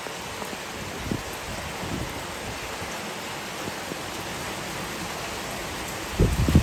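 Steady rain falling on garden plants and pots, an even hiss, with a short cluster of low thumps near the end.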